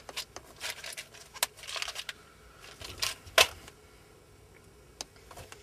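Small clicks and rustling from wire connectors and hand tools being picked through and handled, with one sharp click about three and a half seconds in.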